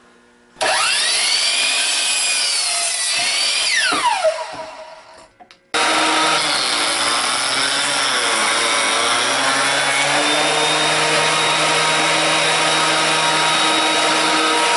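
An electric miter saw starts abruptly and runs with its pitch rising and falling, then winds down with a falling whine and stops. About six seconds in, a benchtop jointer comes in suddenly and runs steadily as a piece of wood is pushed across its cutterhead.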